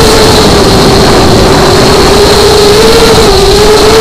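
FPV drone's electric motors and propellers whining steadily, heard from the onboard camera over a loud rushing hiss; the pitch wavers with the throttle and dips briefly a little over three seconds in.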